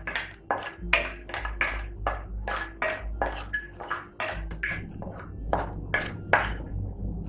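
Background music: a quick, regular run of short, bright notes, about three or four a second, over a bass line.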